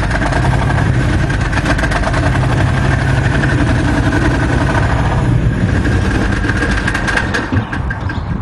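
Engine of an Argo-based Tetrarch replica tank running steadily as the tank drives slowly on its new WildPanther rubber tracks, with a rapid, even pulsing throughout and a few sharper clicks near the end.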